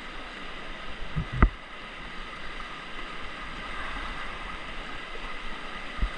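River water rushing around a paddled raft, with wind on the microphone. A sharp thump comes about a second and a half in, and a smaller one near the end.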